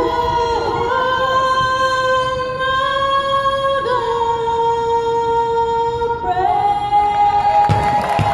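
A teenage girl sings solo, holding long sustained notes through the closing line of the national anthem. She rises to a higher final held note near the end, as crowd cheering and applause begin to swell.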